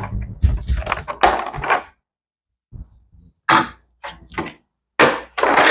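Clear plastic blister tray crackling and clicking as it is handled, in irregular bursts with a short pause about two seconds in.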